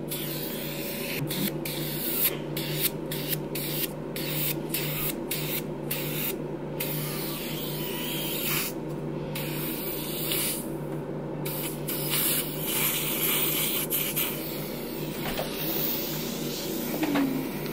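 Hydrofacial machine's suction wand hissing and sucking as it is worked over the skin. The hiss cuts out briefly again and again, most often in the first half, over a steady low machine hum.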